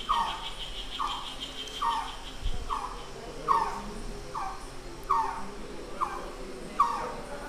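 An animal call repeated at a steady pace: a short cry falling in pitch, about nine times, roughly every 0.8 s. A high, fast-pulsing trill runs under the first couple of seconds and stops.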